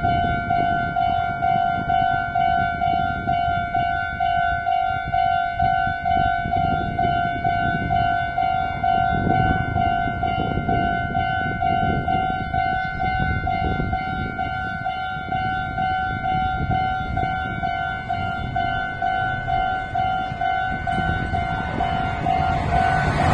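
Japanese railway level-crossing warning bell ringing in steady repeated dings, warning that a train is coming with the barriers down. A low rumble runs underneath.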